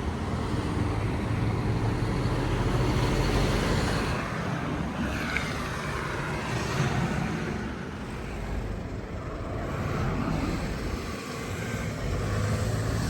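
Steady rumble and hiss of road vehicles, swelling and easing slowly.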